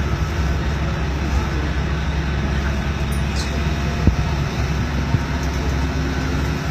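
Low, steady rumble of a moving Okinawa Urban Monorail (Yui Rail) car heard from inside the cabin, with a single short knock about four seconds in.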